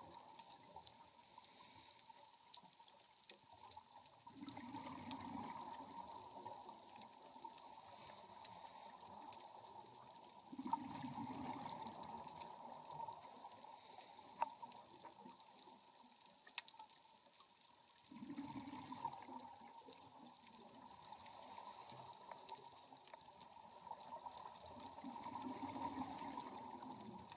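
Underwater, a scuba diver's exhaled bubbles gurgle from the regulator in bursts of two to three seconds, one about every seven seconds. Faint scattered clicks run underneath.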